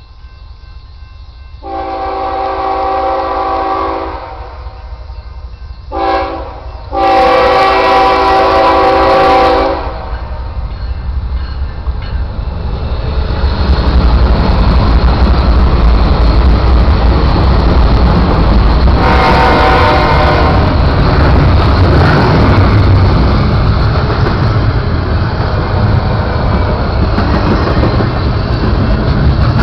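BNSF diesel locomotive's multi-note air horn sounding a long blast, a short one and a long one, the end of a grade-crossing signal, as the westbound double-stack intermodal train approaches. About thirteen seconds in, the locomotives pass with a loud diesel rumble. The double-stack container cars then roll by with wheels clacking over the rail joints, and the horn gives one more blast about twenty seconds in.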